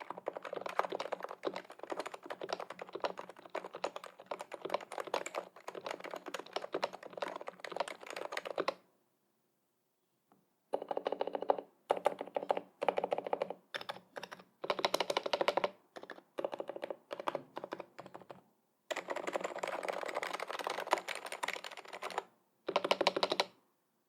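Typing on a Noxary XRF keyboard with lubed, silenced Realforce 86U Topre switches and a steel plate. The typing is fast and continuous for the first eight or nine seconds. After a pause of about two seconds it comes in short runs of keystrokes, then one longer stretch, and it stops just before the end.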